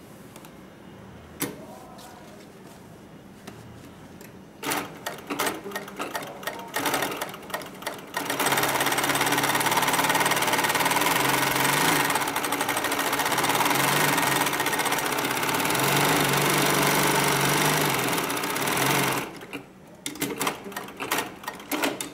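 HIGHTEX 9517UL heavy-duty walking foot zigzag industrial sewing machine stitching leather. About four and a half seconds in it makes a few short stop-start runs. It then runs steadily at high speed for about eleven seconds, and makes a few more short runs near the end.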